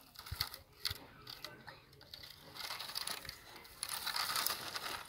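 Toy 6x6 truck's small electric motor and gear train whirring in uneven bursts as it drives over sandy gravel, with a few sharp clicks in the first second.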